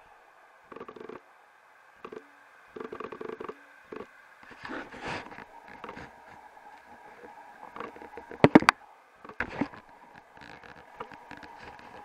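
Scattered knocks and rustles from a handheld phone camera being moved and gripped, with a loud pair of sharp knocks about eight and a half seconds in.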